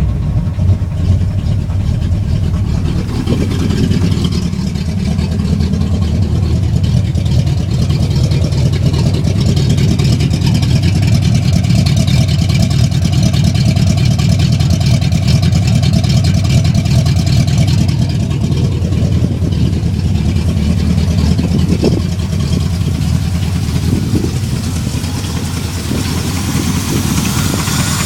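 Freshly rebuilt 1971 Oldsmobile Cutlass SX V8, with .030 oversize pistons, a forged steel crank and a Comp Cams 268 XE cam, idling steadily.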